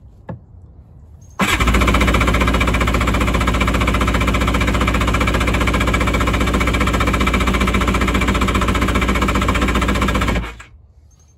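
1988 Kawasaki 650SX jet ski's two-stroke twin engine cranked on its electric starter, with gas poured into the intake as a primer, giving a loud, rapid, even chugging. It starts about a second and a half in, holds steady for about nine seconds, and stops suddenly near the end.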